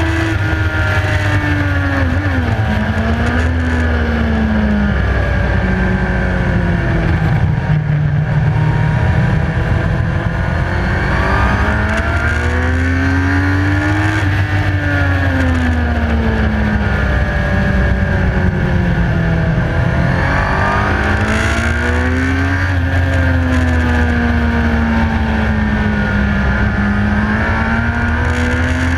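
Onboard sound of a motorcycle at racing speed on a track: the engine note climbs and falls several times as the rider accelerates, shifts and slows for corners, under heavy wind rush on the microphone.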